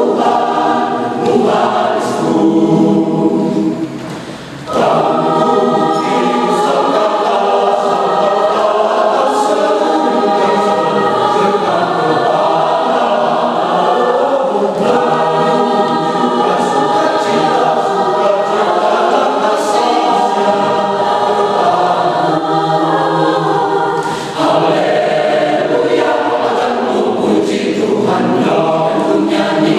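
Mixed church choir singing in parts, in sustained phrases with short breaks between them about four seconds in and again near the end.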